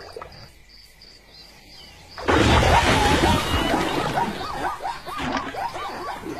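Insects chirping in an even pulse, then about two seconds in a sudden loud burst of many short, repeated animal calls over a dense rustle.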